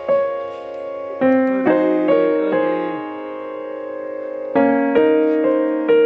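Background music: piano or electric-piano chords struck one after another, each ringing and fading, with a long held chord in the middle.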